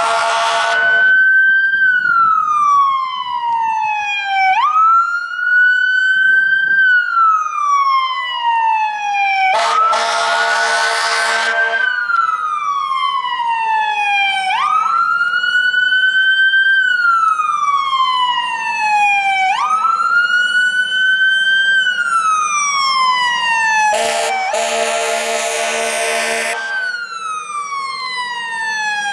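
Fire engine siren wailing, its pitch jumping up and then sliding slowly down in a cycle of about five seconds. The truck's horn sounds three times over it: briefly at the start, then long blasts about ten seconds in and near the end.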